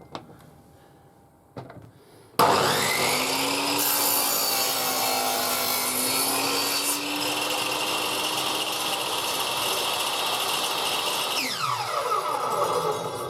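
Bench table saw switched on about two seconds in, spinning up to speed and running with a steady whine while cutting wood. Near the end it is switched off and winds down, its pitch falling.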